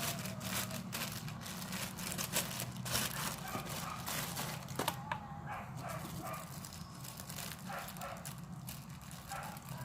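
Plastic packaging crinkling and rustling in irregular crackles as squishy toys are put back into their bags, over a steady low hum.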